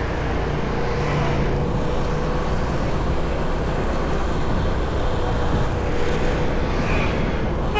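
Steady vehicle and traffic noise while moving along a city street, with a faint steady engine hum under the road noise.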